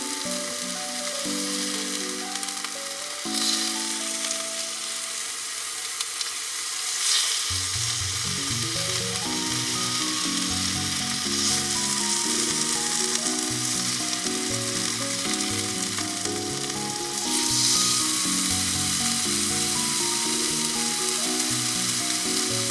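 Slices of beef tongue sizzling steadily on a small cast-iron griddle plate over a camping gas stove, the sizzle swelling louder a few times. Soft background music plays under it, with a bass line joining about a third of the way in.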